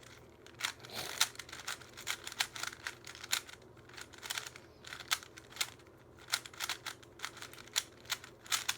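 Plastic Rubik's cube being turned by hand in quick, irregular twists, its layers clicking and clacking as it is scrambled.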